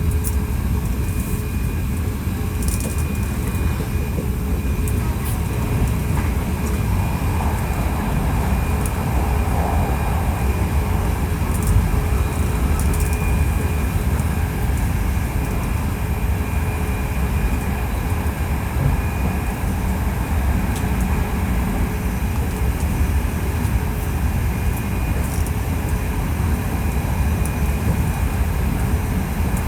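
Hankyu 1300-series electric train running at steady speed, heard from inside the car: a constant rumble of wheels on rail with a faint steady whine and scattered light clicks.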